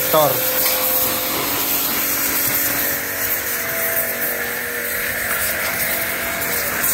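Electric pressure washer running steadily, its motor humming under the hiss of the water jet as it sprays a scooter's engine parts around the fuel injector.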